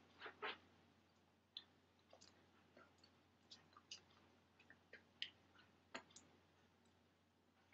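Near silence: faint room tone with scattered soft clicks and ticks, about a dozen, irregularly spaced.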